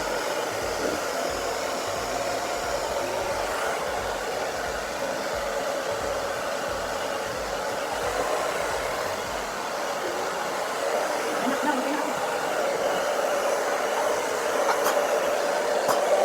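Hair dryer running steadily, blowing air as someone's hair is blow-dried: a constant rushing whir.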